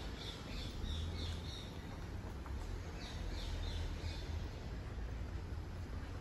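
Small birds chirping in runs of quick, short high notes, one run at the start and another about three seconds in, over a steady low rumble.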